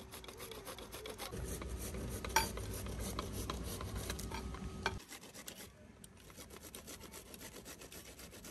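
White radish (mooli) being grated on a metal hand grater and scraped with a vegetable peeler: quick repeated rasping strokes, with a sharp click about two and a half seconds in.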